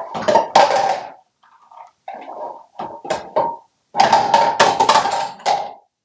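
An African grey parrot clattering plastic things about on a bathroom sink: a bath dish, a floating toy and a cup knocked into the basin. It comes in three bouts of rapid knocking and rattling.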